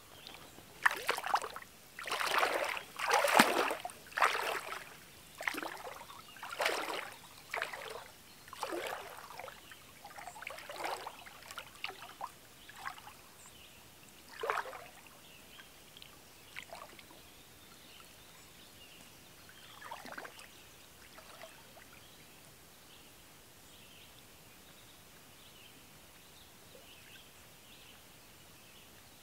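Water splashing and trickling as a person wades into a calm lake and scoops water with her hands. The splashes come thick and irregular for about the first half, then thin out to a few single splashes and drips.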